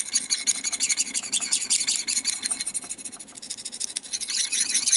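Thin metal stirring rod scraping round a small metal paint-mixing dish while mixing model paint: a rapid, continuous metal-on-metal scratching that eases off for a moment around the middle, then picks up again.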